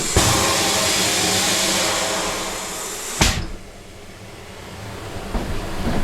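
Compressed air hissing steadily for about three seconds, then cut off sharply with a knock. A quieter sound follows and builds toward the end.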